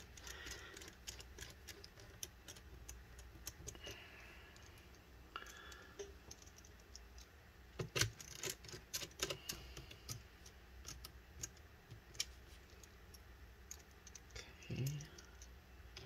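Faint, scattered clicks and ticks of a small screwdriver driving screws back into a laptop's bottom cover, with a denser run of clicks about eight seconds in.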